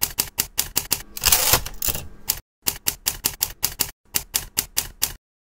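Typewriter keys striking in quick runs, about five strokes a second. There is a longer noisy stretch a little over a second in, and two brief pauses, before the typing stops near the end.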